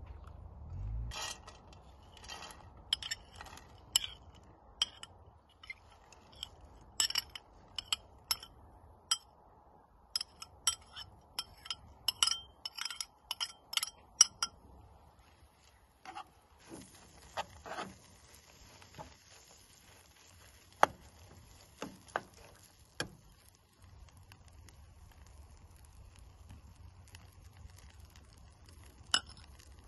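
A metal spoon clinking and scraping against a cut-glass bowl in many quick, ringing taps as dried barberries are scraped out into a frying pan. From about halfway a faint steady sizzle of the barberries frying in oil sets in, with a few knocks of the spoon against the pan.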